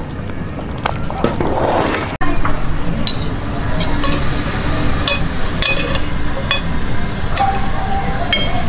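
Metal spoons clinking against ceramic bowls and a serving plate as rice porridge and braised frog are spooned out. The clinks are sharp and ringing, about one a second, starting about two seconds in over a steady background hum.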